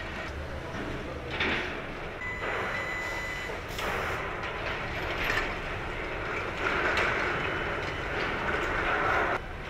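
Assembly-floor noise in a helicopter factory: a steady hiss with irregular clatter and swells of louder noise, and a brief thin whistle-like tone early on.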